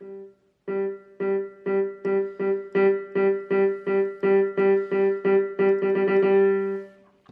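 Casio CT-S300 digital keyboard playing a piano voice. One key is struck again and again, about twice a second, each note louder than the last, with the final note held for about a second. This shows the touch-sensitive keys: the harder the press, the louder the note.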